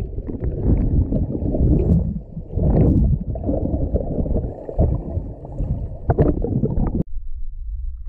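Scuba diver's exhaled bubbles gurgling around an underwater camera, a dense muffled bubbling with crackles. It cuts off abruptly about seven seconds in, leaving a quieter low underwater hum.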